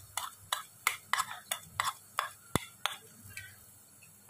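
A steel spoon knocking and scraping against a bowl as dry dal and rice are pushed out into a pressure cooker: a quick series of light clicks, about three a second. The clicks stop about three seconds in, with one sharper knock just before.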